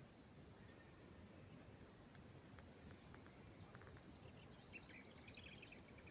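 Faint insects in vegetation: a steady high-pitched buzz with a chirp repeating at an even pace, about two to three times a second. A few short bird chirps come in about four seconds in.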